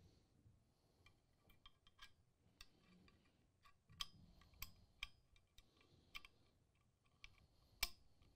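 Faint, irregular clicks and taps of small metal parts being handled: the M1014 shotgun's bolt release button and its spring being worked into place in the receiver under spring tension. One sharper click comes near the end.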